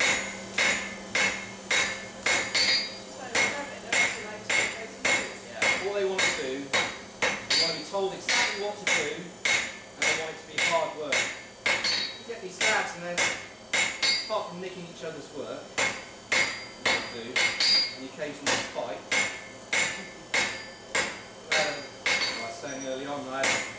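Hand hammer striking a hot steel bar on an anvil in a steady rhythm, about two to three blows a second, each with a short metallic ring, as the blade of a pruning knife is forged. The hammering pauses briefly about two-thirds of the way through and again near the end.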